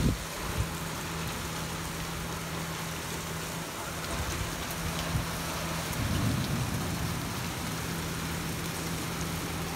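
Steady heavy rain pouring onto wet pavement and parked cars, with a steady low hum underneath. A brief low rumble comes about six seconds in.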